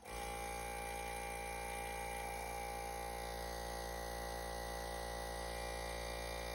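Air compressor switched on with a click, then its motor and pump running steadily, building pressure. The repaired unloader valve is now holding, so no air is leaking.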